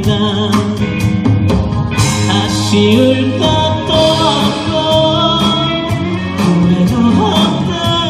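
Live band performance of a Korean pop-rock song: a man singing over acoustic and electric guitars with a steady drum beat.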